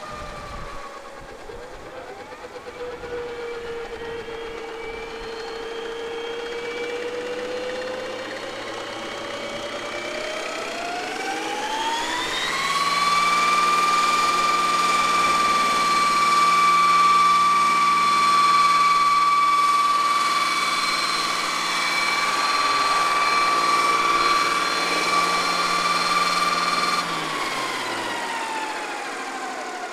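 Scale RC Boeing CH-47 Chinook tandem-rotor model helicopter running on the ground. Its drive whine sits low at first, rises steeply about ten seconds in and holds a steady high pitch, then falls away near the end as the rotors slow.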